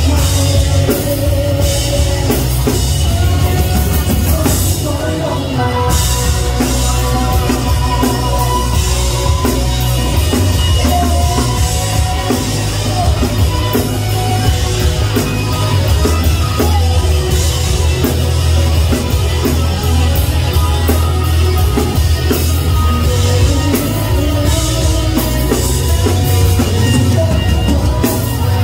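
A live rock band playing, with a man singing the lead into a microphone over drums and a heavy bass.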